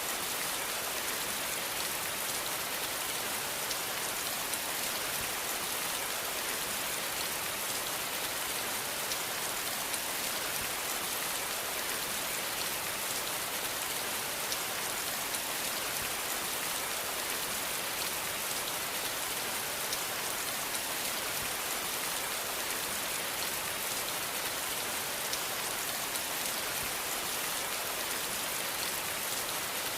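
Steady rain falling on a surface, an even hiss with fine scattered drop patter.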